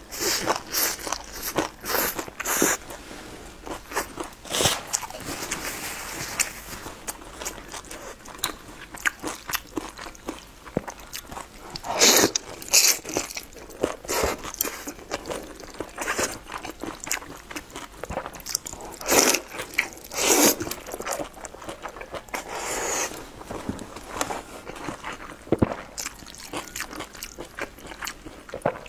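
Close-miked eating: crunchy bites into a sesame-crusted flatbread and a run of crisp chewing sounds, alongside mouthfuls of wide noodles. A few bites stand out louder about twelve and twenty seconds in.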